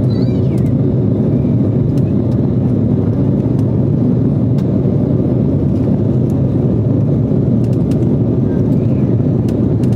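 Steady cabin noise of an Embraer 195 in flight: its two under-wing GE CF34 turbofans and the rush of air past the fuselage make an even, deep rumble from a window seat at the rear of the cabin.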